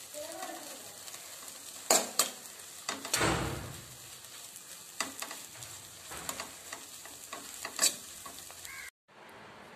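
A spatula stirring and scraping crumbled beef brain thoran in a non-stick pan over a steady sizzle, with sharp knocks of the spatula against the pan a few times and a duller knock about three seconds in. This is the dry-frying stage, with the mixture cooked down almost dry. The sound breaks off near the end.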